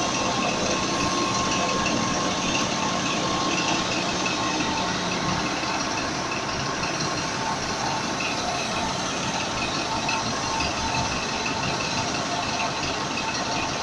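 Diesel engines of heavy mining machinery, Caterpillar haul trucks and a large hydraulic excavator, running steadily as a continuous mechanical din with a faint steady whine. A low hum drops out about five seconds in.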